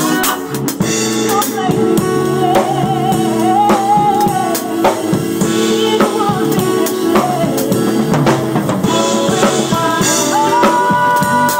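Live band playing a song: a drum kit keeping the beat under sustained chords, with a voice singing a wavering melody over them.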